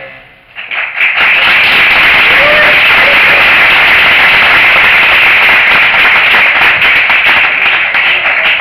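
The end of a song fades out, then about a second in a theatre audience breaks into loud, steady applause, with a few short whoops over the clapping.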